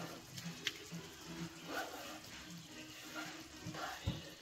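Creamy curry gravy simmering quietly in a frying pan, with a couple of soft ticks in the first second as sliced green chillies drop in.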